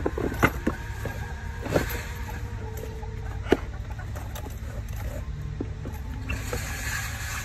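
A hollow plastic toy wheel being handled and pushed onto its axle: a few sharp plastic clicks and knocks, the sharpest about half a second in and about three and a half seconds in, over a steady low rumble.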